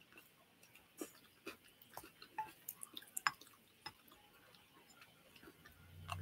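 Faint chewing and mouth clicks from someone eating, with scattered soft ticks and taps. A low steady hum starts near the end.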